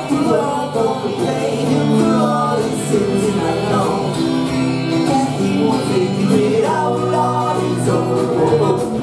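Ska band playing live: a lead vocal over electric guitar, bass guitar and drums.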